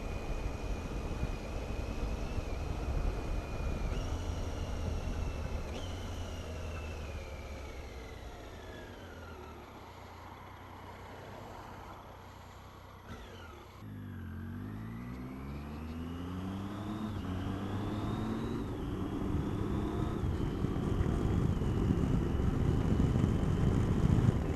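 Triumph Tiger motorcycle engine under way, heard from the rider's helmet. It changes down twice, then the engine note falls away as the bike slows, and it pulls away again, rising and dropping through several upshifts and getting louder.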